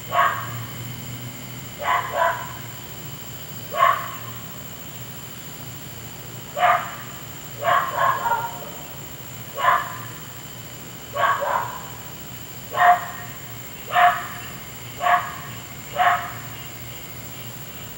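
A neighbour's dog barking over and over, sharp single barks and quick doubles every second or two, stopping about two seconds before the end, over a steady low hum.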